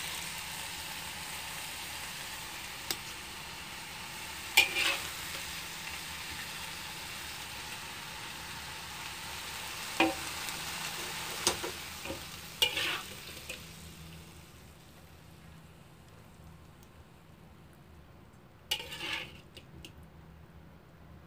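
Bitter melon and beef stir-frying in a wok: a steady sizzle, with the spatula scraping and clinking against the pan every few seconds. The sizzle fades out about two-thirds of the way through, and near the end there is a short clatter of dishware.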